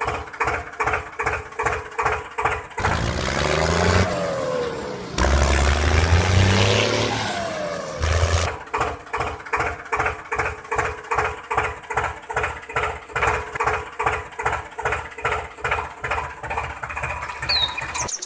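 Toy tractor engine sound, an even chugging of about three beats a second. For a few seconds in the middle it gives way to a noisier revving stretch with rising and falling whine, then the chugging resumes.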